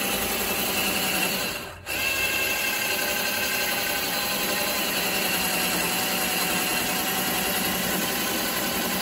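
Cordless drill running a 5/16-inch bit through an outrigger cross tube, a steady whine under load that stops for a moment about two seconds in, then starts again and runs on.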